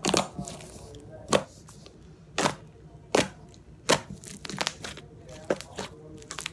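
Thick, glossy cream-cheese-texture slime being pressed and folded by hand, giving sharp pops and crackles as trapped air bursts. The pops come about once a second, with a quick run of several near two-thirds through.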